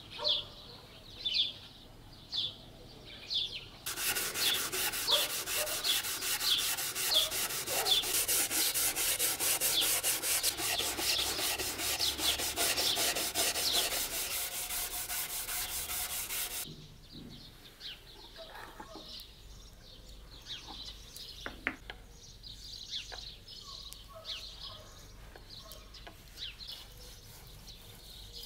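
Charred shou sugi ban pine board scrubbed by hand with an abrasive pad: a steady, dense rasping that starts about four seconds in and stops about halfway through, cleaning the loose char off the burnt surface. Before and after it, softer hand rubbing on the wood and birds chirping.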